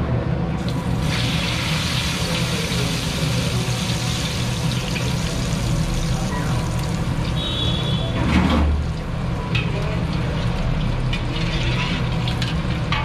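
Food deep-frying in a steel kadai of hot oil, with a steady sizzle and bubbling and a steady low hum beneath. A brief louder surge comes about eight seconds in.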